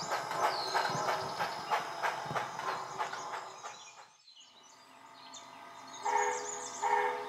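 Model steam locomotive sound effects: slow, even chuffing that fades away about four seconds in, then two short whistle blasts near the end.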